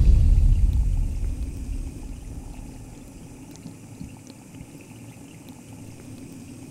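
Underwater ambience: a deep rumble that fades away over the first two seconds, leaving a faint, steady low murmur of water with a few small clicks.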